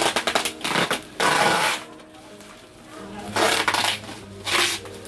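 Bubble wrap crinkling and crackling as it is pressed and folded around a printer by hand, in several short bursts with a longer rustle about a second in.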